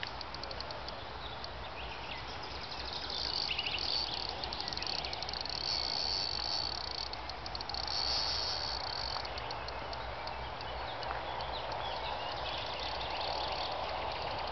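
Crickets chirping in a high, fast trill that swells and fades, over a faint steady low hum.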